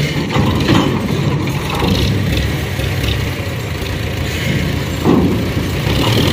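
Tractor engine running while its hydraulic tipping trolley is raised and dumps a load of soil, with a few knocks as clods and stones tumble out of the back.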